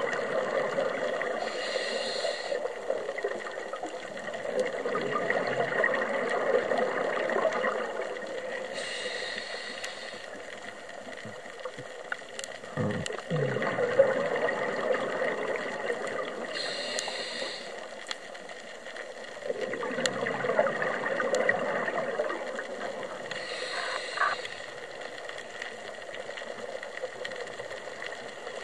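Scuba diver breathing through a regulator: a short hiss on each inhale, then several seconds of bubbling exhaust, in a slow cycle of four breaths about seven seconds apart. A single dull knock about halfway.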